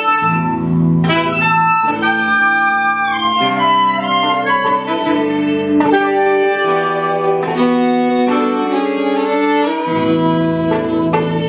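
Live chamber ensemble of violin, viola and saxophones playing held, overlapping notes in chords that shift every second or two, with a rising glide in the upper notes about two seconds in.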